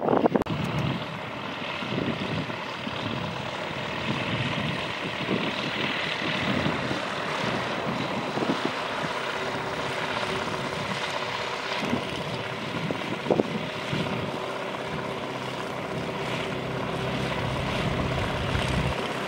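Tecnam P92 light aircraft's piston engine and propeller running steadily at low taxi power.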